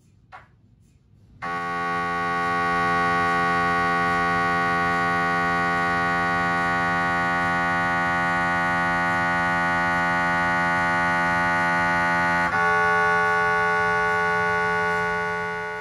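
GE Signa Excite 1.5T MRI scanner running a three-plane localizer (scout) sequence: its gradient coils give a loud, steady electronic tone made of many pitches. The tone starts about a second and a half in, changes pitch abruptly about twelve seconds in, and fades out near the end.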